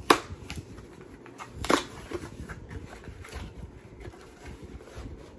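Handling noise as the next candle is unpacked: light rustling and small clicks of packaging, with two sharp knocks, one right at the start and one nearly two seconds in.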